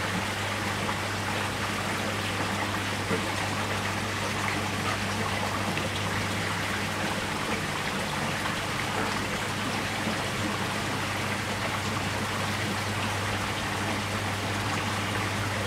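Water running and trickling steadily into a fish tub, with a constant low hum from a pump.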